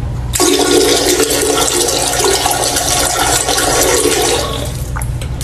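Toilet flushing: a rush of water that starts about half a second in and eases off near the end.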